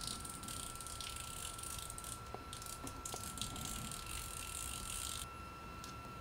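Star drag being spun off the handle shaft of an Okuma Tesoro 10S conventional fishing reel, making a fast, irregular run of small metallic clicks that stops suddenly about five seconds in.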